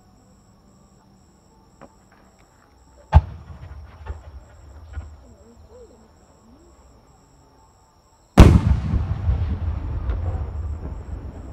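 Aerial firework shells bursting: a sharp bang about three seconds in with a few smaller pops after it, then a much louder boom near the end whose rumble and crackle die away slowly.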